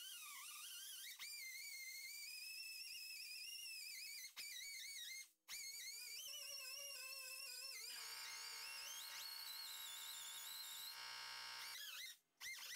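Faint whine of a handheld rotary power tool grinding paint off the door's sheet metal, its pitch sagging and recovering as it is pressed on and eased off. A denser buzz joins from about eight to eleven seconds in.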